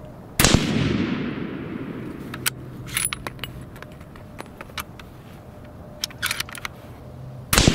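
Two shots from a Remington 700 ADL bolt-action rifle in .30-06, about half a second in and near the end, each followed by a long echo. Between the shots come sharp metallic clicks of the bolt being worked to chamber the next round.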